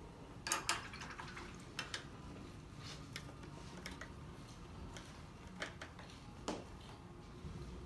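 Scattered light clicks and taps, several in quick pairs, as a paintbrush knocks against a watercolour paint box and its mixing palette while picking up paint.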